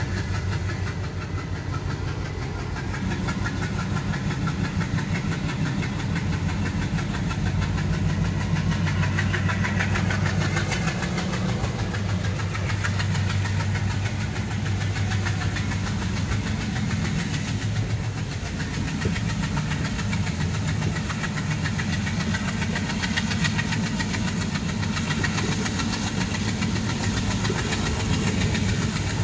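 Passenger express train running at low speed: a steady low engine drone from the locomotive over a constant rumble of wheels on the rails, heard through an open coach door.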